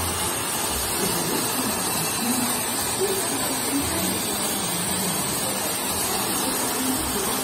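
Water fountain jets spraying and splashing into a pond: a steady, even hiss, with faint voices of people in the background.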